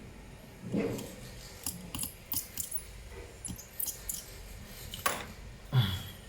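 Scattered sharp clicks and light taps of small tools and parts being handled on an opened laptop, with a few duller knocks; the loudest, a low thump, comes near the end.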